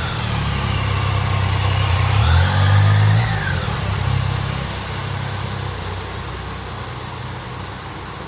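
Bus engine revving up and then easing off, its whine rising and falling and loudest about three seconds in.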